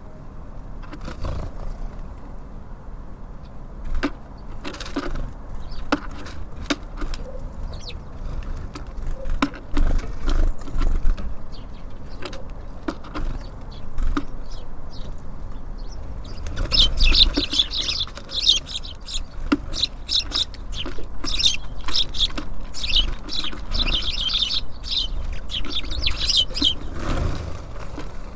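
Small birds at a feeder: wings flutter and sharp taps and clicks come as they land and peck. From about halfway through there is a busy flurry of high chirping calls.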